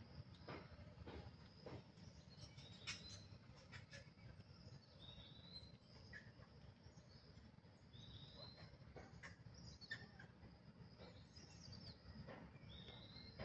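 Faint outdoor ambience with a few short, high bird chirps and scattered light clicks and rustles.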